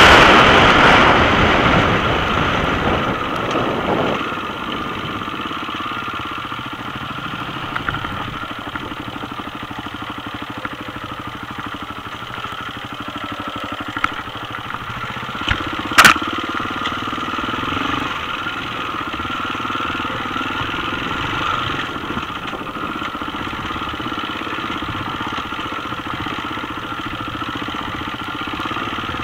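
Enduro motorbike engine running under load, heard from a helmet-mounted camera. It is loudest and revving high at the start, then settles to a steady run over rough trail, with a few knocks and one sharp crack about sixteen seconds in.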